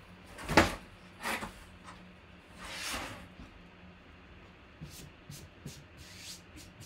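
Rustling and brushing of cardboard packaging as a large photo is handled: a sharp rustle about half a second in, a shorter one just after, a longer sliding brush around three seconds, then several light clicks and taps near the end.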